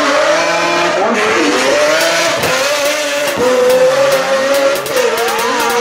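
Race car engine at high revs as the car drifts through a corner and passes close by, its pitch rising and falling with the throttle, with sharp crackles throughout.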